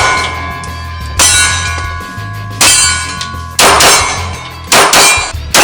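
A series of loud metallic clangs, about one every second and a quarter, each leaving a ringing tone, over a steady low drone.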